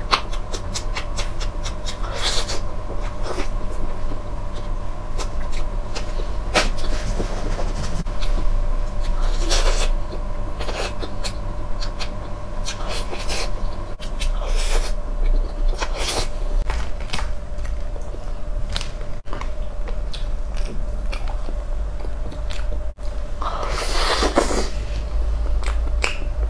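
Close-miked eating sounds: many short wet mouth clicks while eating soft matcha mousse cake from a metal spoon, over a faint steady hum. About a second-long scrape near the end as the spoon digs mango and cream out of a plastic dessert tub.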